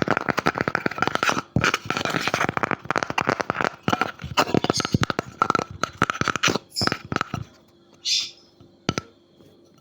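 Quick, dense tapping and scratching on a wooden object, many taps a second, thinning to a few scattered taps after about seven seconds, with one short hiss.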